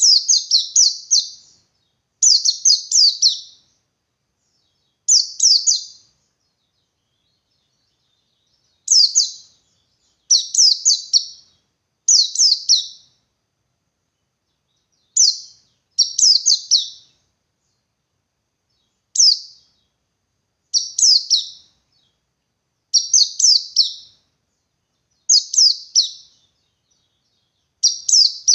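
White-eye (pleci buxtoni) singing its 'ngalas' song: short phrases of rapid, high twittering notes, each lasting about a second, repeated with pauses of one to two seconds between them.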